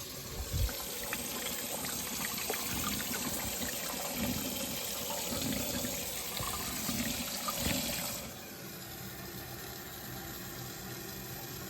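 Water rushing into a newly plumbed macerating toilet's tank through its fill valve, a steady hissing rush that drops to a quieter fill about eight seconds in. A few faint knocks sound over it.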